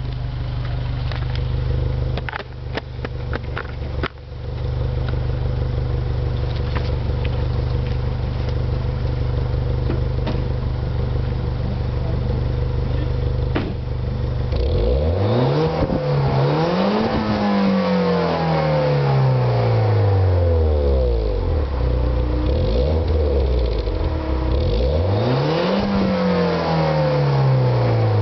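Stock Peugeot 208 GTI's 1.6 turbocharged four-cylinder idling steadily, with a few clicks early on, then revved twice in the second half, the revs rising quickly and falling back slowly to idle each time.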